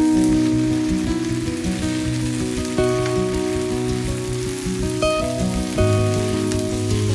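Instrumental background music with held notes, over a steady sizzle of potatoes, onions and spinach frying in a wok.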